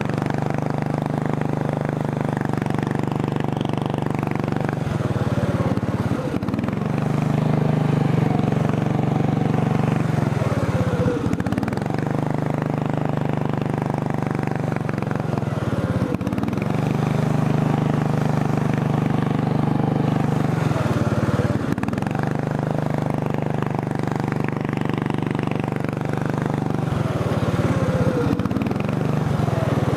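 400cc racing lawn mower engine running under way, its note rising and falling every few seconds as the throttle is opened and eased off. The carburetor is not tuned right and leaks gas.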